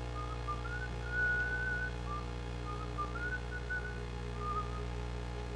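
A person whistling a tune, a single line of short notes and a few held ones, over a steady low electrical hum.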